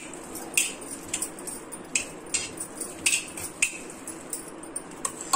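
A ball of cooked ragi (finger millet) dough rolled around a wet steel bowl and plate, with short light clinks about twice a second from the glass bangles on the rolling wrist and from the steel.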